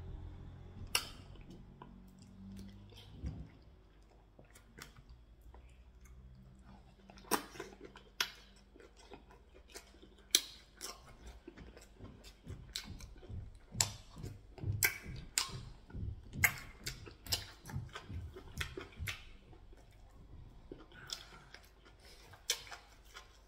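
Close-miked chewing and wet mouth smacks of a man eating pounded yam, ogbono soup and meat by hand. It comes as a run of irregular sharp clicks, few in the first few seconds and much busier from about a third of the way in.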